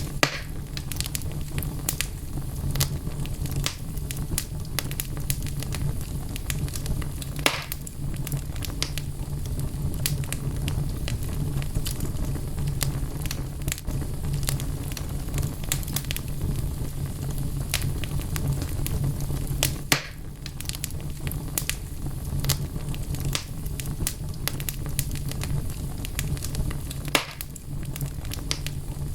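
Wood fire burning in a fireplace: logs crackling with frequent small pops over a steady low rumble of flame. Three louder pops stand out, about a third of the way in, two-thirds of the way in and near the end.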